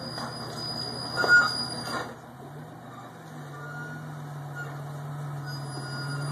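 Rock-crawler buggy's engine running: it eases off about two seconds in, then pulls again at a steady note. A short loud knock comes about a second in.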